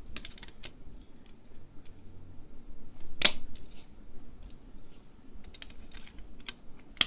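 CDs being pressed onto the hubs of a plastic multi-disc DVD case: small plastic clicks and rattles, with two sharp snaps as discs lock into place, one about three seconds in and one near the end.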